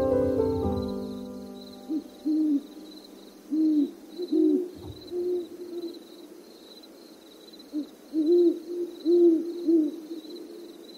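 An owl hooting in short series of low, arched hoots, with a longer run near the end. Background music dies away in the first second.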